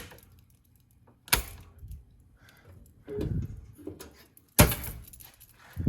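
Several sharp clacks and dull thuds at uneven intervals: about three hard clacks at the start, about a second and a half in, and about four and a half seconds in, with duller knocks between and at the end.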